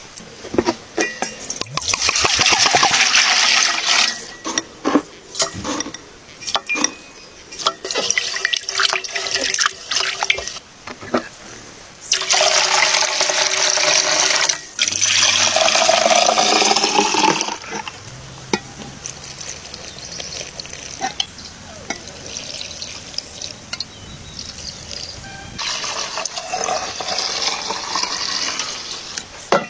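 Liquid poured in several separate pours: apple vinegar splashing from a glass jug into an enamel bowl, and near the end liquid poured from the enamel bowl into an enamel pitcher. One pour rises in pitch as the vessel fills. Between the first pours comes a run of light clicks and knocks.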